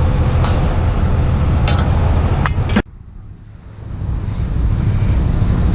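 Low rumbling wind noise on the microphone with a few sharp clicks. It cuts out suddenly about halfway through, then builds back up.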